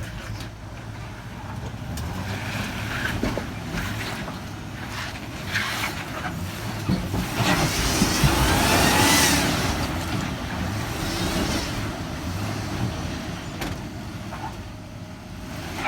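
Jeep Grand Cherokee engine revving under load on a muddy off-road climb. It swells to its loudest about eight to ten seconds in, with the pitch rising and then falling away.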